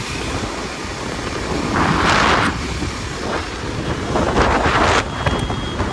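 Wind rushing over the microphone of a KTM Duke 250 riding at speed, with the bike's single-cylinder engine and road noise running underneath. Two louder rushes of wind come about two seconds and four and a half seconds in.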